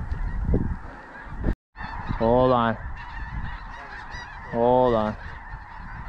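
Geese calling: a steady chatter of many geese, with a louder wavering honk about two and a half seconds in and again near five seconds.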